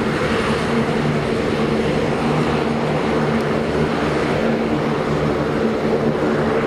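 Saab 2000 twin turboprop taxiing, its Allison AE 2100 engines and six-bladed propellers running at low power with a steady droning hum of several low tones.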